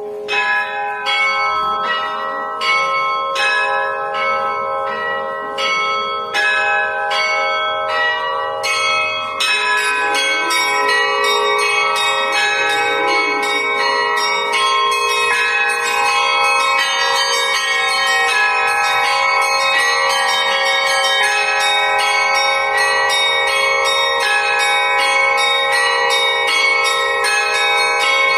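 Russian church bells of an Old Believer church rung in a traditional zvon. Bells are struck in a steady rhythm at first. From about nine seconds in, many smaller bells join in a fast, dense chime over the lasting hum of the larger bells.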